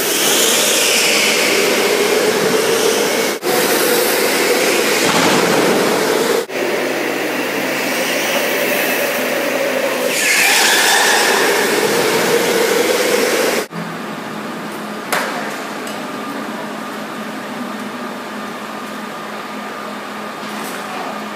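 Indoor electric go-kart at speed, heard from on board: a loud noise of wind and tyres with a motor whine that rises and falls, broken by a few abrupt edit cuts. After the last cut, about two-thirds of the way in, it turns to a quieter, steady hum with a faint held tone.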